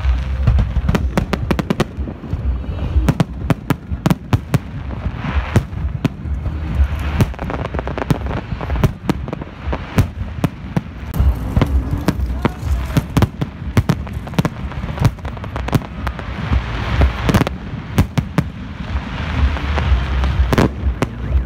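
A fireworks display: a dense, irregular run of bangs and crackles from many shells, over a steady low rumble.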